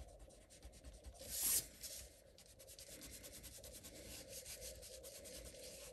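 Pen-style eraser scrubbing back and forth on card stock, rubbing out a pencil line: faint rapid rubbing strokes, with one louder stroke about a second and a half in.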